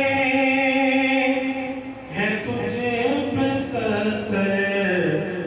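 Naat recitation: one man's voice singing without instruments in long held notes, breaking off briefly about two seconds in and then sliding down through an ornamented, falling phrase.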